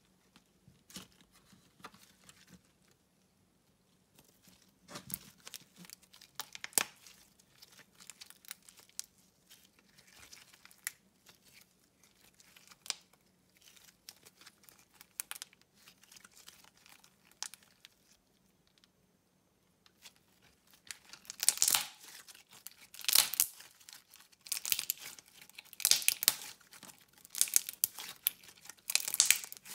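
Slime with crumbled eyeshadow powder mixed in, kneaded and squeezed by hand: a run of small, sharp sticky clicks and crackling pops. Sparse at first, then louder and denser over the last third.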